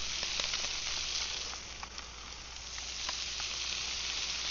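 Buttered fish fillets sizzling steadily on a very hot grill, with scattered small pops and crackles.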